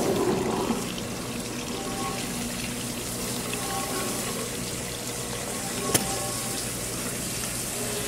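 Industrial dishwasher draining: foamy wash water rushes down the drain of a stainless-steel basin over a steady machine hum, louder in the first second. A sharp click comes about six seconds in.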